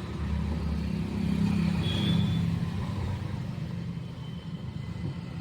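A motor vehicle's engine running, a steady low hum that swells about a second in and then eases off.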